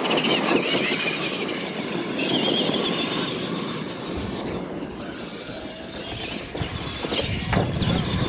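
Radio-controlled monster trucks racing over a dirt track, their electric motors whining and wavering in pitch as they accelerate, over a steady noise of tyres on dirt.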